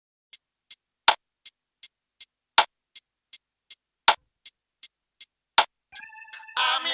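Electronic drum-machine beat opening a hip-hop track: a steady tick about three times a second, with a heavier snare-like hit every second and a half. Near the end a synth chord enters and the full track kicks in.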